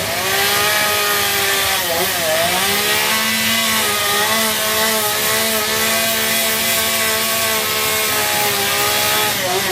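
Chainsaw running under load as it carves into a log, its engine note mostly steady with brief dips in pitch about two seconds in and again near the end.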